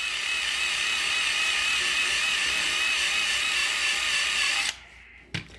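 Cordless drill spinning a wire wheel or abrasive disc against a rusty drill press base, scrubbing off rust and grime. It gives a steady whine that wavers slightly in pitch, then stops suddenly near the end, followed by a couple of light clicks.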